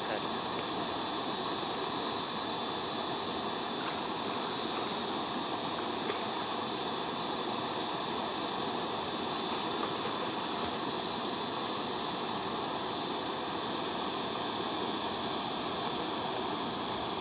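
Steady rush of water spilling over small rocky cascades into a pool. Faint high insect chirps repeat under a second apart near the end.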